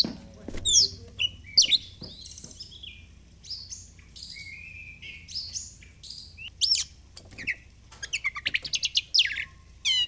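Oriental magpie-robin singing: a varied song of high, clear whistles and sweeping notes, broken by short pauses, with a quick run of short repeated notes near the end.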